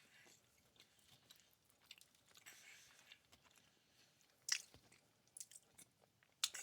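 A man chewing a mouthful of food close to the microphone: faint, soft mouth sounds and small clicks, with one sharper click about four and a half seconds in.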